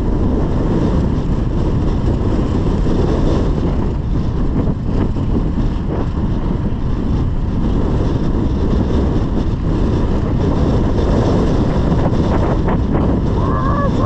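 Wind buffeting the microphone in a loud, steady rumble. Near the end a short pitched voice-like sound cuts in.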